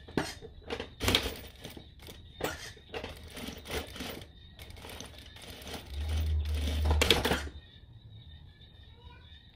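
A string of short rustles and clicks from things being handled, with a low hum for about a second and a half just past the middle.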